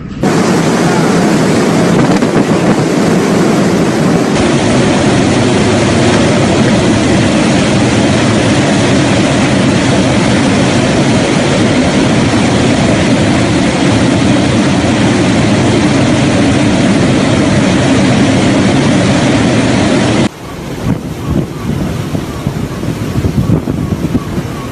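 Hurricane wind blasting across the microphone as a loud, steady rushing noise. About twenty seconds in it cuts to a quieter, gustier stretch of wind noise.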